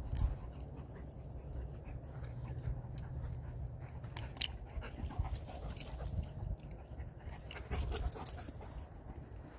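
Dogs playing, panting and scuffling on grass, with scattered short rustles and a low steady rumble underneath.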